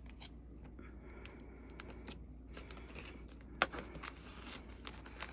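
Faint crinkling and light clicking of plastic card sleeves and clear binder pocket pages as a photocard is handled, with a sharper click about three and a half seconds in.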